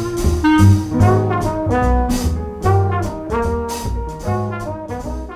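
Background music: a jazzy brass-band piece with a steady beat, getting gradually quieter toward the end as it winds down to a closing chord.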